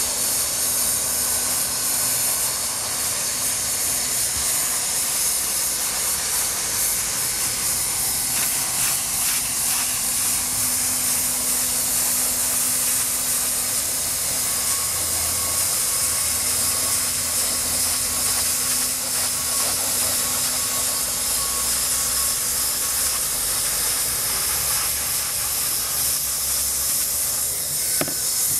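Handheld hot-air plastic welder blowing steadily, a constant hiss from its nozzle as it heat-welds TPO roofing membrane.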